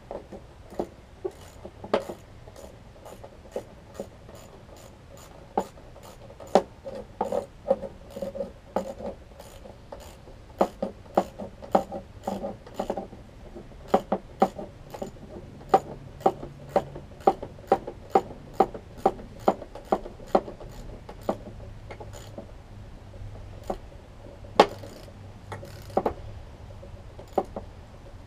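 A screwdriver turning a screw in the mower's deck cover: a long run of sharp, irregular clicks, about two a second at times, with light scraping between them.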